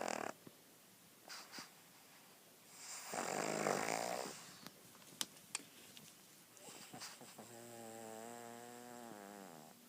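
Snoring in sleep: a loud snore dies away just after the start, and another loud, rasping snore comes about three seconds in. A couple of small clicks follow, then a long, steady pitched breath from about seven and a half seconds that drops in pitch as it ends.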